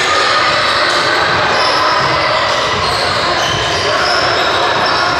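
Basketball game noise in a large gym: a ball bouncing on the hardwood court amid indistinct players' voices, a steady, dense din with no single loud event.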